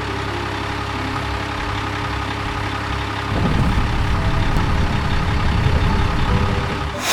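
A heavy vehicle's engine running steadily, then louder and rougher from about three seconds in, as if pulling away or working under load.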